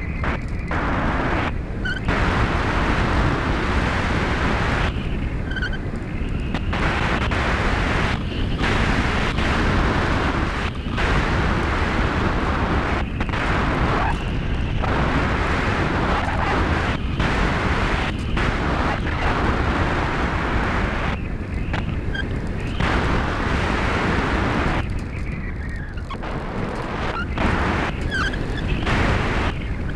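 Wind buffeting the onboard GoPro of a Bixler 2 electric RC plane in flight, along with the plane's propeller and motor noise. The rushing noise eases about four times, and a faint whine shows through in those gaps.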